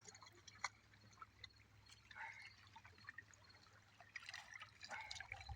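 Faint water splashing and dripping, with scattered small clicks over a low steady hum.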